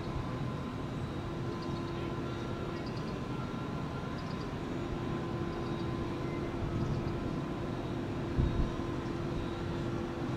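Steady rumble of distant vehicles, with a low humming tone that comes in about a second in and returns from about four and a half seconds. A few faint high chirps sound over it.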